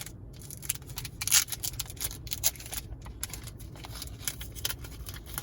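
Foil Pokémon booster pack wrapper crinkling and crackling as it is handled and opened, in quick irregular crackles, the loudest about a second and a half in.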